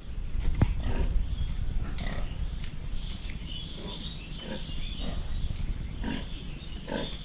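Pigs grunting, a run of short grunts that comes thicker in the second half.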